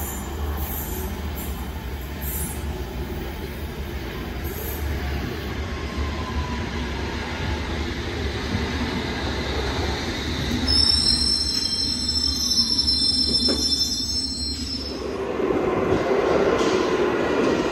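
London Underground train approaching a platform: a steady rumble grows louder, with high-pitched wheel squeal from about eleven to fifteen seconds in. A louder, lower whine follows as it comes in.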